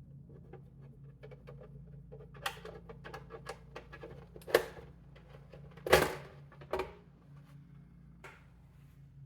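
Light clicks and clatter from handling a small desktop computer's case, with a few louder knocks, the loudest about six seconds in, over a steady low hum.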